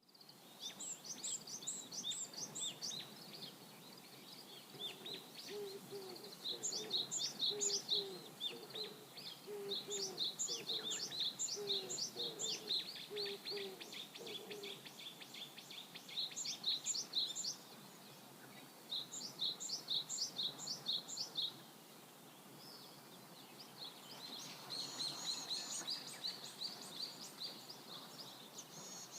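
Birds singing outdoors: bouts of rapid, high chirping notes that repeat every few seconds with short pauses between them. A lower call repeats softly between about five and fifteen seconds in.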